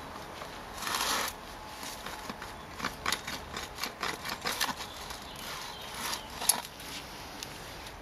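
Hand earth auger being twisted down into lawn soil, its blade scraping and crackling through turf and earth in short gritty bursts, with a longer scrape about a second in and a sharper crack late on.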